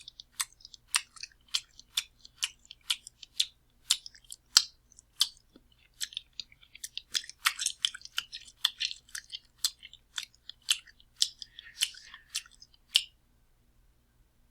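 Sloppy, open-mouthed eating: wet smacks and chewing at about two a second, stopping about thirteen seconds in.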